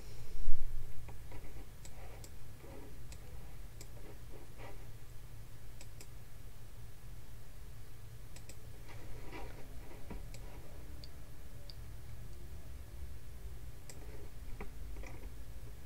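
Computer mouse clicking now and then, sharp single clicks a second or more apart, over a low steady hum. A loud thump about half a second in.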